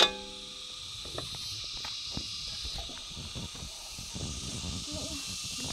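A metal pan lid clanks down onto a steel frying pan, ringing briefly, then a faint steady hiss of insects with scattered low knocks and rustling of handling.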